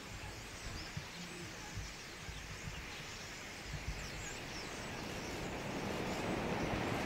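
A large roost of common starlings massed in a reed bed, making a dense, continuous chatter. A rushing roar of wings swells steadily over the last few seconds as the flock begins to lift off.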